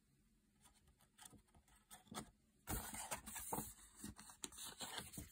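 Near silence, then from about two and a half seconds in, faint rustling and scraping of a picture book's paper page being handled and touched by a finger.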